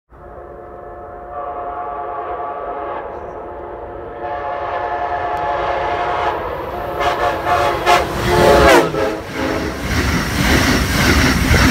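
An approaching Amtrak train's air horn is sounded at length in a hornshow, its chord swelling in steps and then dropping in pitch as the locomotive passes, about eight and a half seconds in. The horn gives way to the loud rush and clatter of the train going by.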